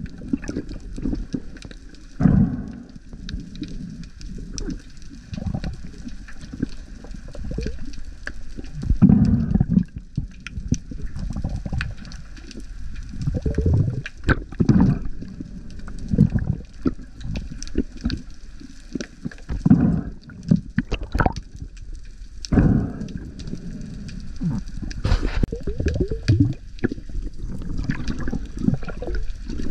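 Sea water sloshing and gurgling in irregular surges, with scattered sharp clicks.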